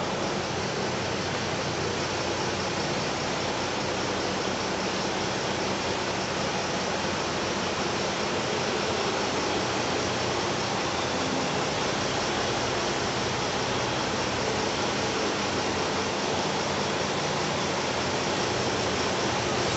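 Western Star 4900 vacuum truck's diesel engine running as the truck creeps forward at low speed, under a steady rushing noise.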